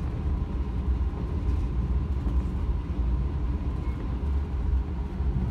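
A JNR 185 series electric train running, heard from inside the carriage: a steady low rumble of wheels on rail with a faint steady hum above it.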